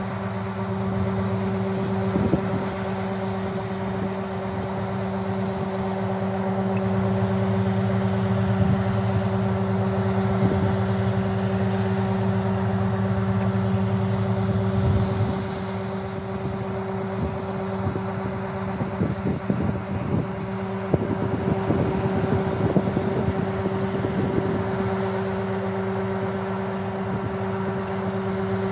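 An engine running steadily with a constant low hum, with scattered knocks and rattles in the second half.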